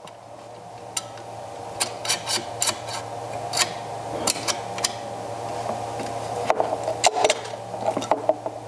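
The leading-edge tool of an RC CG balancing machine being slid along its rail: a rubbing, scraping slide with many scattered clicks and ticks, growing louder toward the end.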